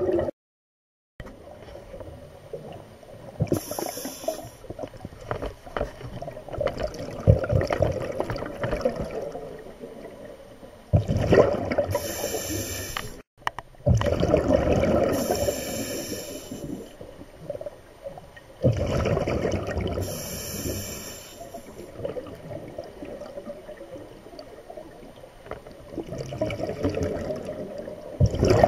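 Scuba diver breathing through a regulator underwater: a steady gurgle of bubbles, with a louder rush of exhaled bubbles every few seconds.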